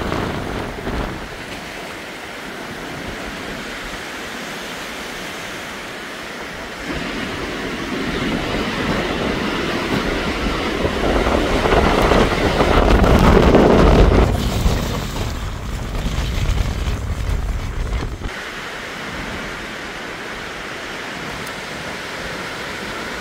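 Storm wind gusting, with the wind rumbling on the microphone and waves washing on a rocky sea-loch shore. The gusts build about seven seconds in, are strongest around halfway through, and ease off suddenly after about eighteen seconds.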